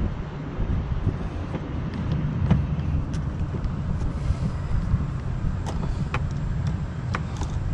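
A steady low rumble with a few scattered light clicks and taps from hand work on a car door's plastic trim panel, its screws and clips.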